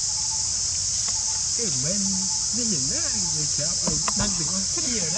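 Steady high-pitched drone of an insect chorus, with people's voices talking in the background from about a second and a half in and a couple of sharp clicks around four seconds.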